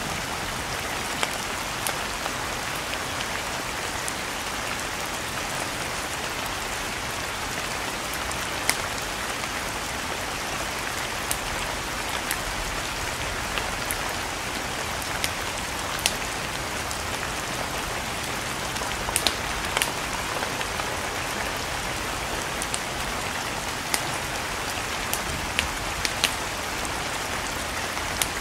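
Steady rain falling, an even hiss, with scattered sharp crackles and pops from burning logs every second or few.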